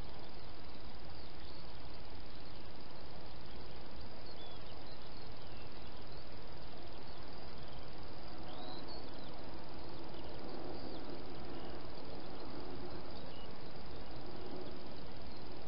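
Wild hedgehog eating from a bowl inside a plastic feeding box, its chewing a little stronger in the middle, over a steady hiss. Short faint high chirps come and go.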